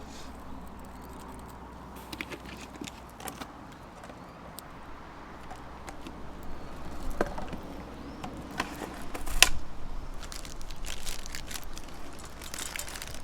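Scattered light clicks and clatter, with one sharper click about nine seconds in, over a faint steady background.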